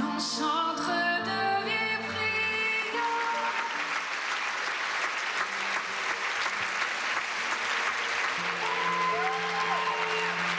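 The last held notes of a live song with accompaniment fade out about three seconds in, and a large theatre audience breaks into steady applause. Soft sustained music comes back under the clapping near the end.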